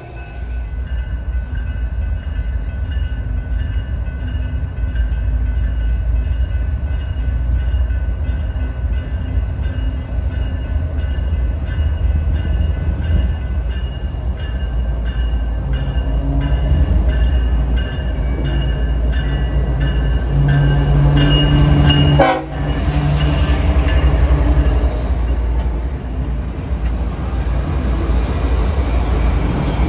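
A train running past with a steady heavy rumble of engines and wheels on rail, with a brief sharp drop in the sound about 22 seconds in.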